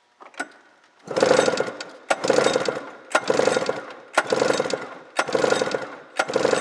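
Two-stroke snowmobile engine, a 1999 Arctic Cat ZL 500 EFI, cranked over with its plug out and a compression gauge in the magneto-side cylinder: about six pulls roughly a second apart, beginning about a second in, each a burst of quick chugging compression strokes that fades away.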